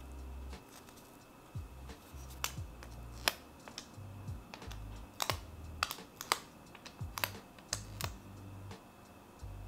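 Crisp, irregular clicks and taps of fingers handling an iPhone and a plastic camera lens protector, about a dozen in all. Soft background music with a low bass line runs underneath.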